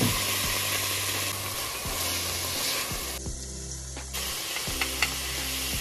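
Chopped onion and garlic sizzling as they hit hot fat in an enamelled cast-iron Dutch oven. The sizzle starts loud, dies down about three seconds in and picks up again a second later.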